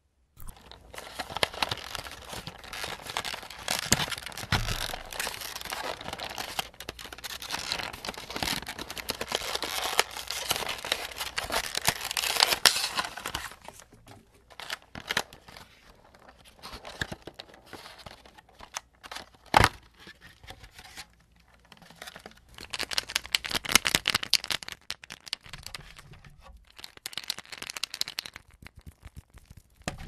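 Clear plastic clamshell tray of foil-wrapped chocolate eggs being crinkled and tapped by hand. A long dense run of crinkling comes first. It thins to scattered taps with one sharp knock partway through, then another run of crinkling follows.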